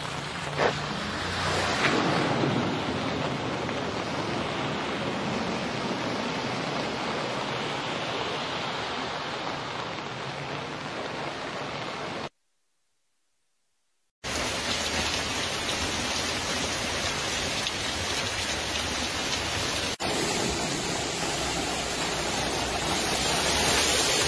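Steady rushing noise of heavy rain and flowing floodwater. A sharp click comes about a second in, and the sound drops out to silence for about two seconds halfway through before the rush resumes.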